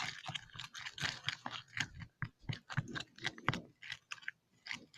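Glue and sequins being stirred for slime, the stirrer scraping and clicking against the container in quick, irregular strokes, with a brief pause about four seconds in.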